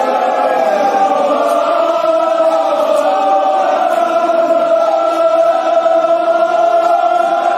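Mournful chanted lament sung in long, slowly bending held notes, with no beat.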